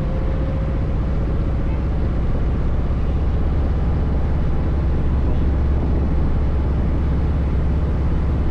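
Kawasaki Voyager 1700's V-twin engine running steadily at cruising speed, mixed with wind rushing over the rider's microphone.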